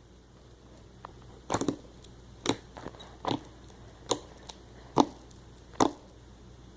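Homemade shaving-cream slime being squeezed and pressed by hand, giving about six sharp pops and clicks a little under a second apart, with a few fainter clicks between.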